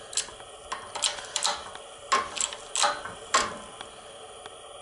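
Shop press pressing a carrier bearing onto a Dana 30 Ox Locker differential carrier: a string of sharp, uneven metallic clicks, about two a second, stopping about three and a half seconds in.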